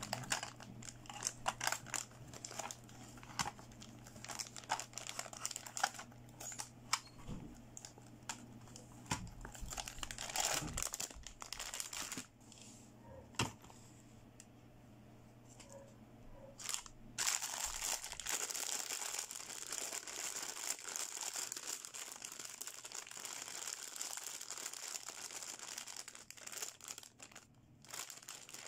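Plastic packaging being handled: clicks and rustles as plastic toy makeup pieces are taken out of a clear vinyl pouch and set down, then, about two-thirds of the way through, continuous crinkling of a clear plastic bag full of plastic toy hair accessories.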